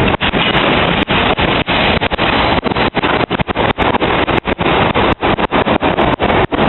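Heritage passenger train rolling past close by, with a RENFE diesel locomotive coming level about halfway through. It makes a loud, steady rolling noise, chopped by many brief dropouts.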